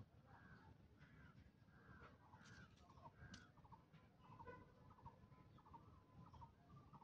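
Near silence with faint bird calls: short chirps and trills repeating every half second or so.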